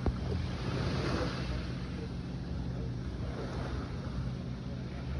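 Steady low engine drone in the background over a hiss of open-air noise, with one sharp click near the start.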